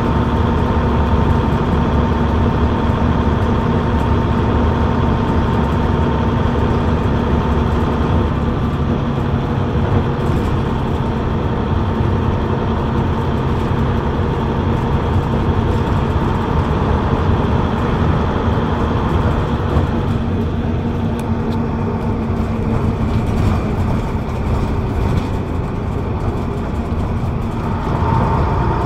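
Rear-mounted Leyland diesel engine of an Atlantean double-decker bus running under way, heard from the back seat above it, with road and body noise. The engine note eases off about two-thirds of the way through and picks up again near the end.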